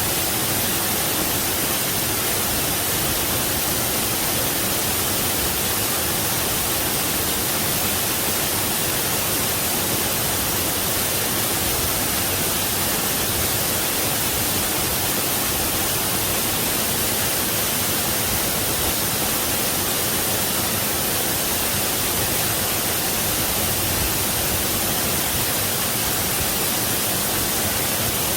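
Waterfall rushing: a steady, even roar of falling water with no changes.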